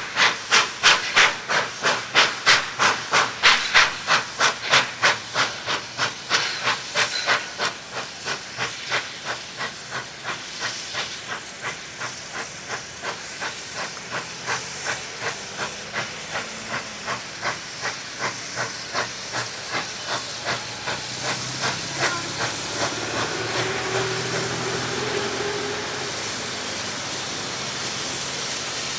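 NSW C32-class 4-6-0 steam locomotive 3237 working hard with a passenger train, its exhaust chuffing in a loud, regular beat. The beats quicken and soften as it approaches, then merge near the end into a steady rumble and hiss as the engine and carriages pass close by.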